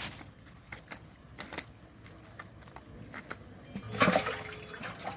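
Water splashing in short, irregular spatters, with the loudest splash about four seconds in.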